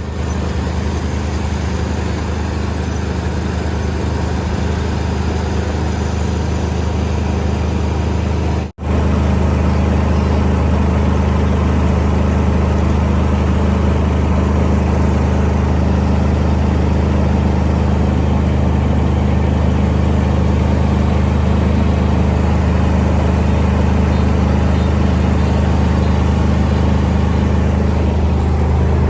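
Kubota combine harvester's diesel engine running steadily under load while harvesting rice, a constant low engine tone with threshing and cutting noise over it. The sound drops out for an instant about nine seconds in, then carries on unchanged.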